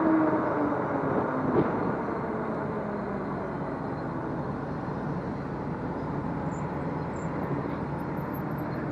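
Steady wind and road noise from riding an electric bike along a street, with a faint tone that drops in pitch in the first second or two and a brief knock about a second and a half in.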